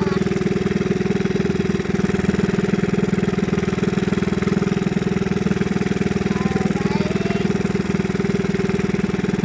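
A small fishing boat's engine running steadily at a constant speed, a continuous even drone.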